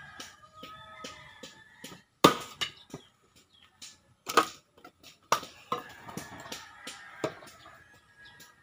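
Axe chopping and splitting wooden logs for firewood: about six sharp, separate blows, the loudest about two seconds in and again about four and a half seconds in.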